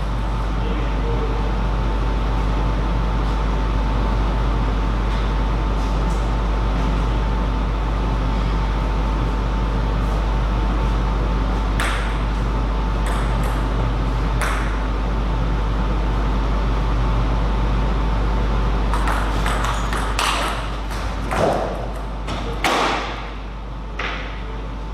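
Table tennis ball clicking off bats and table: a few scattered hits, then a quicker run of hits in the last few seconds. A steady electrical hum and a faint high tone run underneath.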